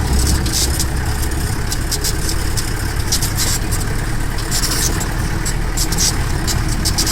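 Jeep engine running with a steady low drone, overlaid throughout by frequent short, sharp clicks and rattles.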